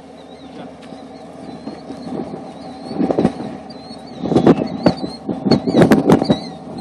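Distant off-road Jeep engine running in a flooded swamp, breaking into loud, rough, crackling bursts of revving about three seconds in and twice more near the end.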